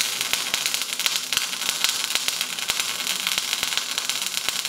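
Everlast 211SI MIG welder arc crackling and spattering steadily as a bead is run with solid wire under pure CO2 shielding gas. It runs at 18 volts and 324 inches per minute, settings the welder finds not the best, needing a little more voltage.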